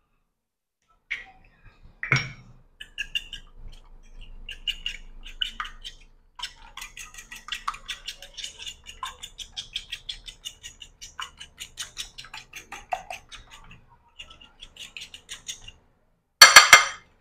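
An egg cracked with a sharp knock on the rim of a bowl, then a long run of quick light clinks of a utensil working in the bowl, and a loud clatter near the end.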